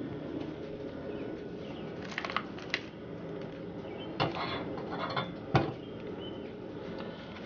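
Light kitchen clatter at a gas stove: a handful of sharp knocks from a bowl and utensils, over a steady low hiss.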